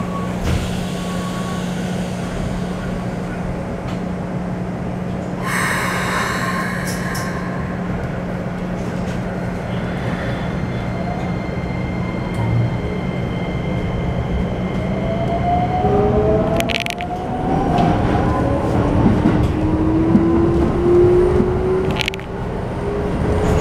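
Keikyu New 1000 series electric train with a Toyo IGBT-VVVF inverter, heard from inside the car. It stands with a steady hum, with a brief chime-like cluster of tones about five seconds in. From about sixteen seconds it starts off, and the inverter's whine rises in pitch as several tones climb together, with a couple of sharp clicks.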